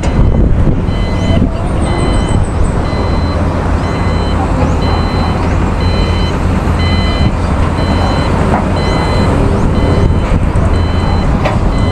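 Heavy construction machinery running with a loud, steady engine rumble, while a reversing alarm beeps in a steady rhythm, a little over once a second.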